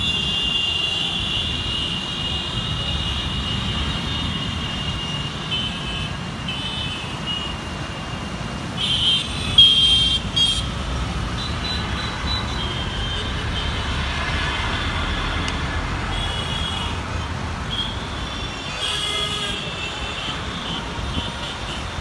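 Busy Indian street traffic: motorcycles, auto-rickshaws and cars running past, with horns honking again and again over the engine rumble. The loudest honks come in a cluster of short blasts about halfway through.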